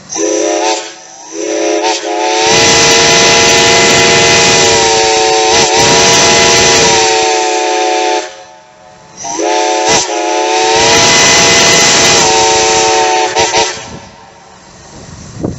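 Illinois Central boiler-tube chime steam whistle blown in two long blasts: a chord of several tones that slides up in pitch as each blast opens, with a brief stuttering toot at the very start and a few wavers of the valve along the way, over loud steam hiss. The first blast lasts about seven seconds; the second starts about nine seconds in and is shorter.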